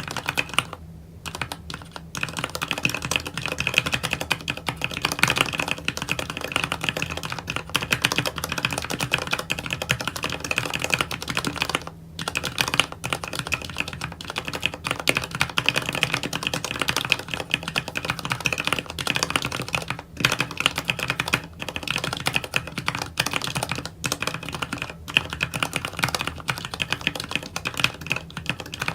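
Fast, continuous typing on a JD45 compact mechanical keyboard with Cherry MX Speed Silver linear switches: rapid overlapping key clicks and keycap bottoming-out, broken by a few short pauses.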